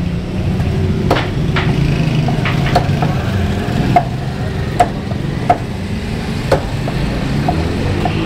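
Meat cleaver chopping boneless chicken on a thick wooden chopping block: irregular sharp chops, roughly one a second, over a steady low background hum.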